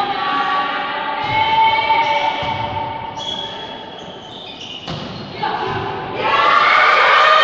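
Spectators' voices in a sports hall, shouting and chanting in long held calls during a volleyball rally. Near the end a louder burst of shouting starts. A single thud of the ball being hit comes about five seconds in.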